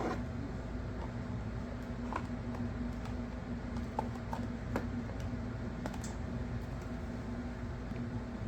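A steady low electrical hum with scattered light clicks and taps.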